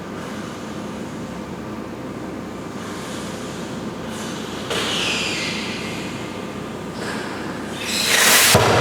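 Fire in a product-ignition test: a steady roar of burning, then a sudden hiss about halfway through and a much louder rushing burst of flame near the end.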